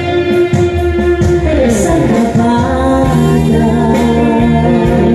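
A woman singing into a microphone over backing from a Yamaha PSR-S975 arranger keyboard, with long held notes and one note sliding down in pitch about two seconds in.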